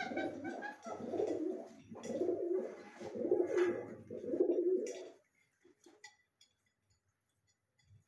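Pigeons cooing: a run of low, rolling coos for about five seconds, then they stop, leaving a few faint clicks.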